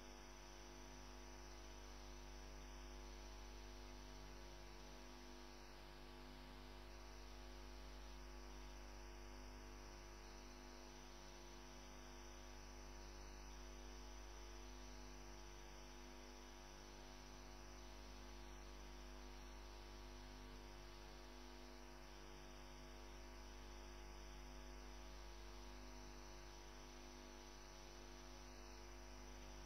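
Near silence with a steady low electrical hum and faint hiss.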